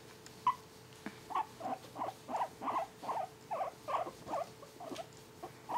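Guinea pig giving a single squeak, then a steady run of short, squeaky calls, about three a second, while being petted.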